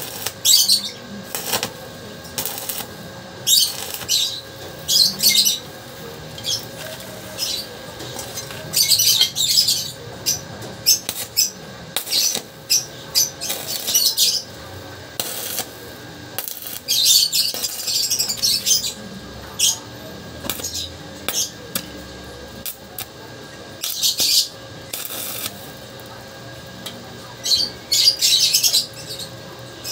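Stick (arc) welding: the electrode crackling and sizzling in short runs of a fraction of a second to about two seconds, the arc struck and broken many times over.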